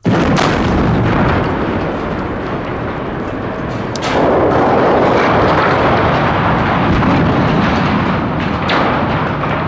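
Linear shaped charges on the steel legs of a 120-foot water tower go off with a sudden sharp blast, followed by the long, loud noise of the steel tower toppling and crashing to the ground, louder again about four seconds in.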